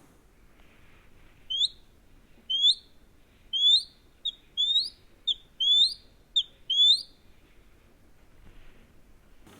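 Eagle calling: a series of nine short, high-pitched whistled cries, each sliding upward in pitch. The cries come about once a second at first, then faster, with shorter clipped notes mixed in from about four seconds in, and they stop about seven seconds in.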